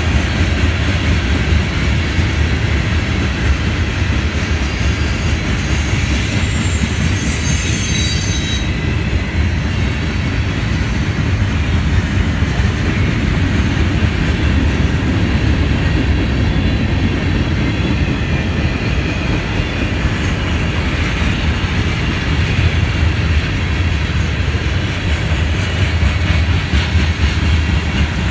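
Mixed freight train cars rolling past: a steady rumble of steel wheels on rail, with a brief high-pitched wheel squeal about six to nine seconds in.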